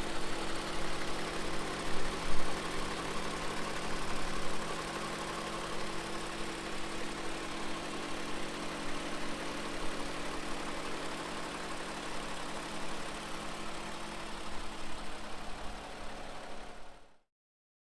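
2020 Toyota Camry TRD's 3.5-liter V6 idling steadily, with no revving. The sound cuts off abruptly near the end.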